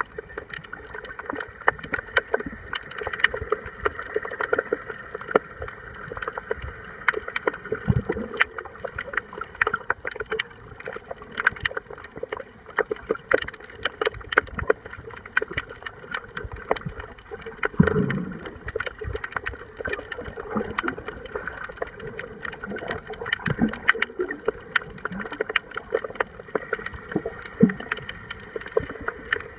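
Underwater sound picked up by a submerged camera: a steady watery wash with dense crackling clicks throughout, and a few low thuds and gurgles, the strongest about 8 and 18 seconds in.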